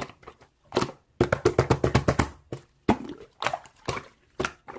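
Slime being squished and pressed by hand, making quick runs of sticky clicks and pops.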